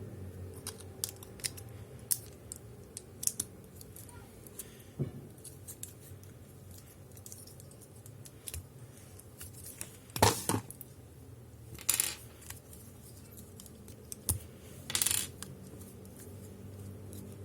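Plastic clicks and snaps from a Transformers robot toy being handled and moved through its joints, scattered irregularly. Three louder scraping sounds come about ten, twelve and fifteen seconds in.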